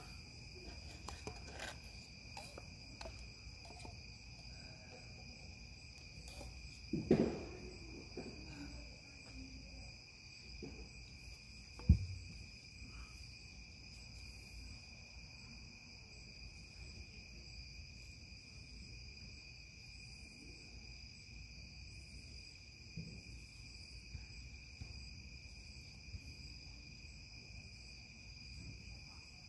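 Crickets chirping in a steady, unbroken high trill. Two short thumps break in, the second and louder about five seconds after the first.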